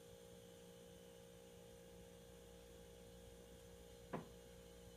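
Near silence: a steady faint electrical hum with light hiss, broken once about four seconds in by a single short knock.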